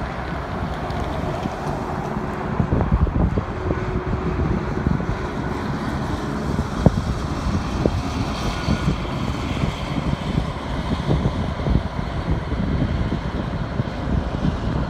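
Wind buffeting the microphone in a low, fluttering rumble over the noise of cars driving past on the road. There is a single sharp tap about halfway through.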